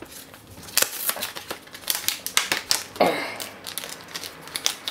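Pokémon card pack being opened by hand: its cardboard backing and thin plastic wrapper crinkle and snap in a quick, irregular run of sharp clicks.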